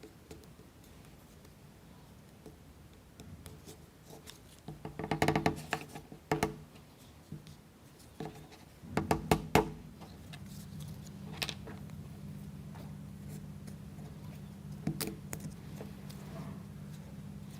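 Sharp clicks and knocks of hands working small plywood model parts, pushing toothpicks through and snipping them off, in two short clusters with a few lone ticks. A low steady hum comes in about halfway through.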